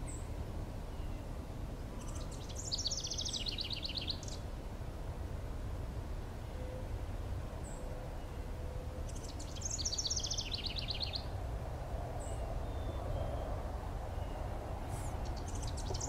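House wren singing its bubbling song: rapid trilled phrases that cascade downward in pitch, each under two seconds, twice about six seconds apart, with a third beginning near the end. A steady low background rumble lies under it.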